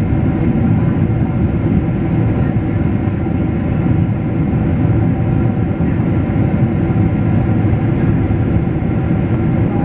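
Steady cabin noise inside a Boeing 777-300ER airliner in flight: a loud, even low rumble of airflow and engines, with faint steady engine tones above it.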